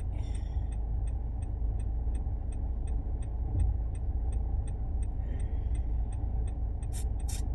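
Steady road and engine rumble inside a moving car's cabin, with a turn-signal indicator ticking about three times a second. A few sharp clicks come near the end.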